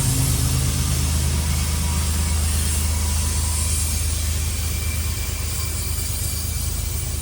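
Diesel-electric freight locomotives working hard up a grade under a heavy train: a steady low engine drone with a hiss on top, slowly fading.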